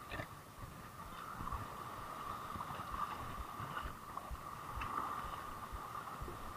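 Small waves washing over a rocky shoreline, with wind buffeting the microphone and a steady faint drone underneath.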